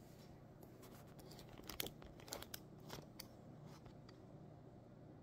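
Handling noise from the phone camera being picked up: a scattered run of faint clicks, taps and rustles in the middle, over a low steady room hum.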